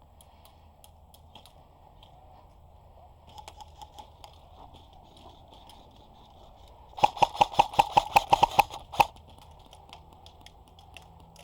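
Airsoft gun firing a rapid string of about a dozen sharp shots over two seconds, starting about seven seconds in, with a few fainter shots a few seconds earlier.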